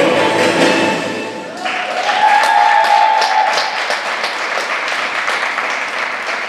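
Skating programme music stops about a second and a half in, and audience applause breaks out, many hands clapping, with one drawn-out cheer over it.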